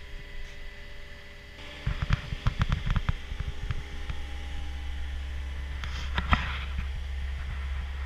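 Knocks and clatter as someone climbs into the cab of a Cat 242D skid steer, heard over a steady low mechanical hum. A single sharp knock follows about six seconds in.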